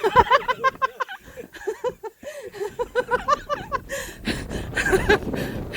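A person laughing hard in quick, high-pitched bursts. About four seconds in, the laughter gives way to a louder, rough rush of breathy noise.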